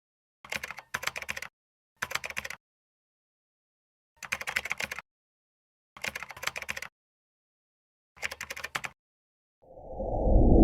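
Short runs of rapid keyboard-typing clicks, six runs in all with gaps between them, then a low whoosh that swells up near the end.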